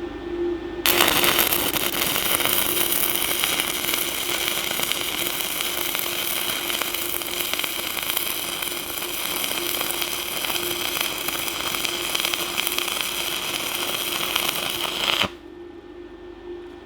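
Stick (MMA) welding arc from a Decapower Ecoarc 160 inverter welder: it strikes about a second in, crackles steadily for roughly fourteen seconds, then cuts off suddenly as the arc is broken. A faint steady hum runs underneath.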